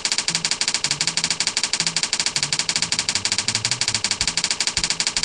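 Typewriter-style clicking sound effect: a rapid, even run of clicks, more than ten a second, keeping steady throughout.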